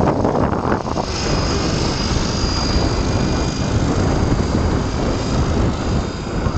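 Wind buffeting the microphone, with the thin, steady high whine of a Swift 16 RC plane's electric motor and propeller in flight, growing clearer about a second in.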